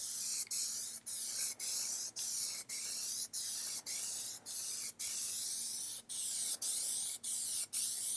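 Aerosol can of black Plasti Dip spraying in short hissing bursts with brief breaks, about two a second: a light first tack coat being dusted on.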